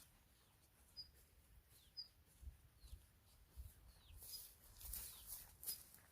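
Faint bird chirps: short high calls, some sliding downward, every second or so.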